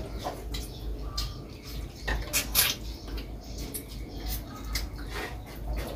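Mealtime sounds: scattered light clicks and taps of plates and cutlery, the loudest a few sharp clinks about two seconds in.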